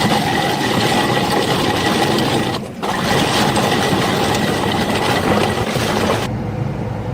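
Excavator-mounted Simex TF1100 rotary drum cutter grinding through rock: a dense, steady grinding with a constant whine over the machine's engine. About a second before the end, the sound changes to a duller low rumble.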